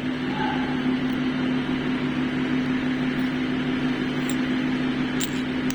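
Truck diesel engine running steadily at idle, a constant low drone with a steady hum.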